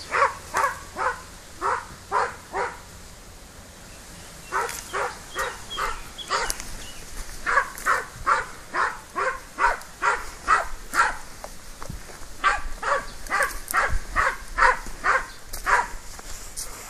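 Dog barking repeatedly in quick runs of short barks, about two to three a second, with brief pauses between runs.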